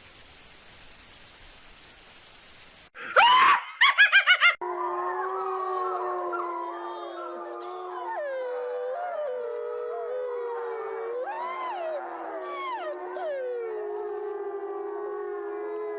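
Rain hiss for about three seconds, then a brief, loud sweeping wail, then a canine pack howling: many overlapping voices gliding up and down and holding long notes.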